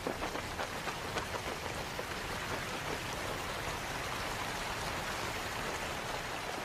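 Rain falling steadily, with sharp close drop taps, thickest in the first second or so.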